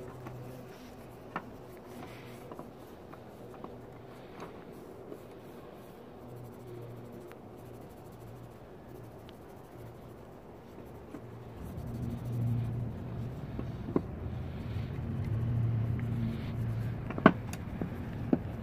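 Terry cloth rubbing over the rusty steel of a vise grip, with a few sharp knocks of the tool handled against a bench, the loudest near the end. A low hum swells louder through the second half.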